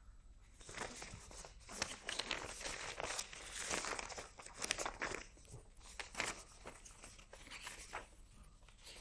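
Irregular crinkling and rustling of paper being handled, densest in the first half and thinning out later.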